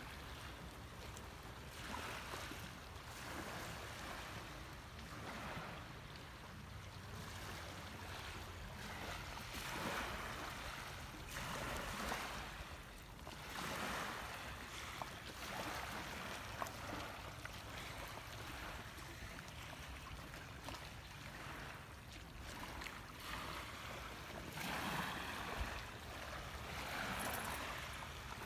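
Small waves washing onto the shoreline, swelling and fading every few seconds, over a low rumble of wind.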